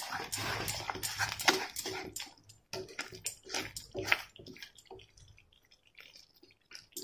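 Wooden spatula stirring a thick, sticky jaggery-and-tamarind pickle masala in a kadai: irregular wet scraping strokes that die away after about four and a half seconds.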